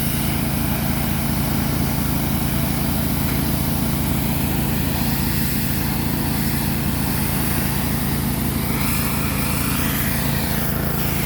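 Portable sawmill's gasoline engine running steadily at a low, even speed.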